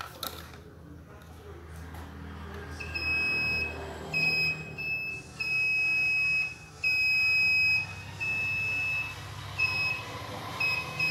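Multimeter continuity buzzer beeping in irregular short and long bursts on one steady high tone as the probes make and break contact, starting about three seconds in. The beeping signals a short circuit across the probed points on the decoder board, which is traced to a shorted small capacitor.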